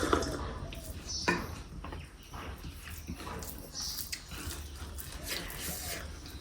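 Eating at a meal: food being mixed and chewed, with small clicks and two sharp clinks about a second apart near the start.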